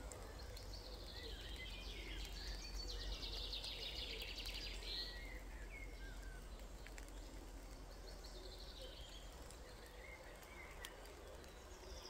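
Songbirds singing in woodland: several rapid trilled phrases, the longest running a few seconds, with a pause in the middle, over a faint steady hiss of a light rain shower.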